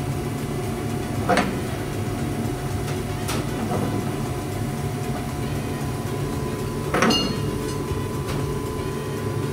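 Steady hum of a commercial kitchen's ventilation. It is broken twice, about a second in and again about seven seconds in, by a sharp metallic clink, like a utensil striking a cooking pan. The second clink rings briefly.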